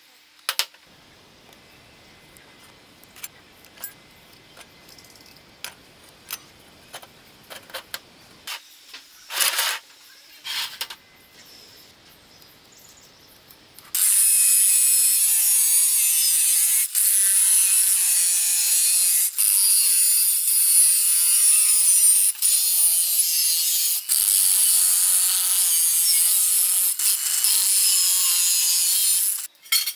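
Scattered light clicks and knocks of handling, then from about halfway an angle grinder with a thin abrasive cut-off disc cutting through square metal tube. The grinding is loud and steady, with a few short dips, and stops just before the end.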